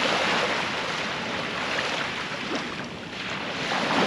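Sea surf breaking and washing up a beach: one wave's wash fades about three seconds in, and the next swells up near the end.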